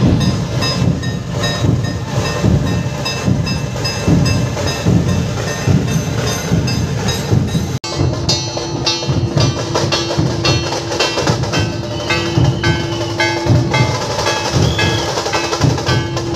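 Processional drumming on large dhol barrel drums, beaten in a fast, even rhythm with sharp higher strikes on top, as in a dhol-tasha band. After a cut about halfway, a steady held tone runs under the drumming.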